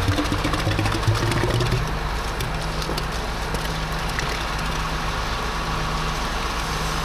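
Truck diesel engine running steadily, with a higher whine that rises slightly and then stops about two seconds in.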